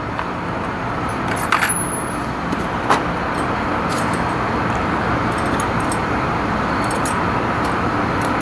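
Small metal clicks and clinks of bolts, nuts and hardware being handled, a short cluster about a second and a half in and another near three seconds, over steady background noise.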